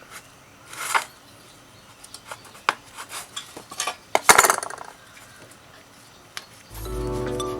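Small metal objects clinking and scraping as they are handled, with a louder scrape about a second in and another about four seconds in. Background music starts near the end.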